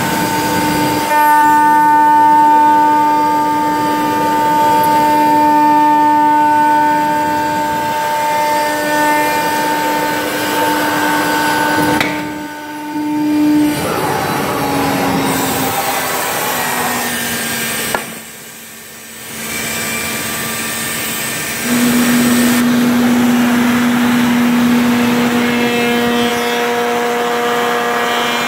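CNC router spindle running a shaped profile cutter through the edge of a round wooden workpiece: a steady high whine over rough cutting noise. The sound drops out briefly twice, and the whine sits a little lower in pitch in the second half.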